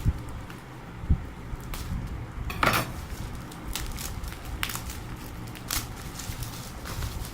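Handling noise from unboxing a fisheye phone lens: scattered sharp clicks and light knocks of small parts and packaging, with a longer rustle about two and a half seconds in.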